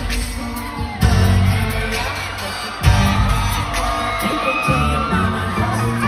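Loud amplified pop music played through an arena PA, with singing, heavy bass and hard beat hits about a second and three seconds in, picked up from the crowd with fans whooping.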